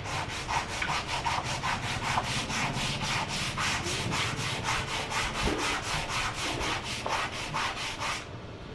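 Sandpaper rubbed by hand over wood in quick, even back-and-forth strokes, about four to five a second, stopping shortly before the end.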